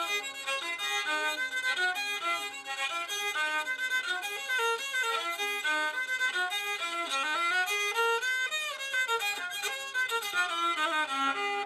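Handmade rabeca, a Brazilian folk fiddle, bowed in a melody of many short, stepping notes, with a second string often sounding along under the tune.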